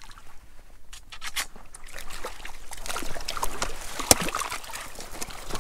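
Water splashing and sloshing as a hooked grayling thrashes at the surface in shallow water and is scooped into a landing net. The splashes come in quick irregular bursts, busiest in the second half, with one sharp hit about four seconds in.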